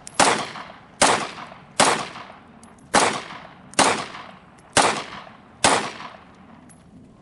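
Glock 17 9 mm pistol firing seven shots at a slow steady pace, about one a second, each sharp report trailing off in a short echo; the firing stops about six seconds in.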